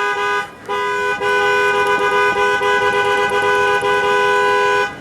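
Ford Crown Victoria's two-note car horn sounded from the steering-wheel button: a short honk, a brief break, then one long steady honk of about four seconds. The horn working shows the newly replaced clock spring is passing the horn signal.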